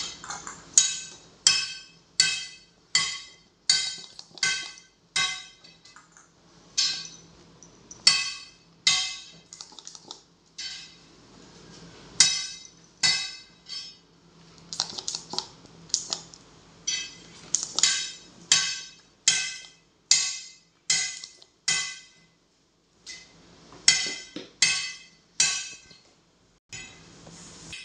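Hand-held pistol-grip vacuum pump drawing the air out of plastic cupping cups, stroke after stroke: each squeeze a short, sharp, high sound, about one or two a second, in runs with short pauses between.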